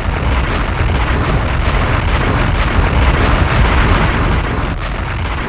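Wind buffeting the microphone: a loud, rough rumbling rush that cuts in and out abruptly.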